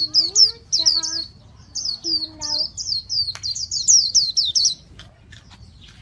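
Caged white-eye singing a fast, continuous song of rapid, high, falling notes. The song breaks off about five seconds in.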